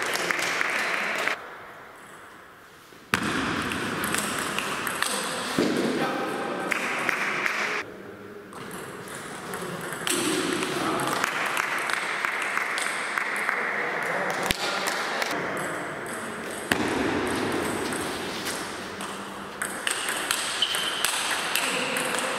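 Table tennis rallies: the ball clicking off the rubber-faced bats and bouncing on the table in quick succession, broken by two short lulls between points, over a background of voices.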